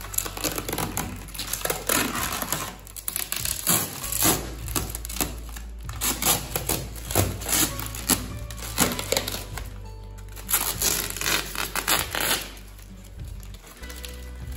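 Packaging rustling, crinkling and clacking in irregular bursts as the oven and its parts are handled during unpacking, over background music.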